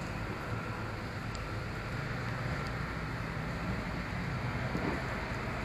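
Steady low rumble of street background noise.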